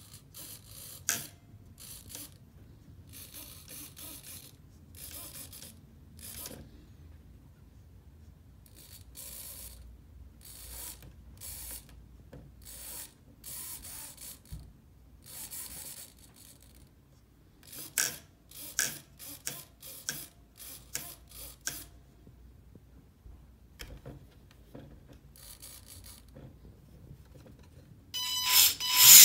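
Scattered short mechanical clicks and rattles. About a second before the end, a cordless drill's motor, driven through a hobby RC speed controller, starts running loudly with a steady whine.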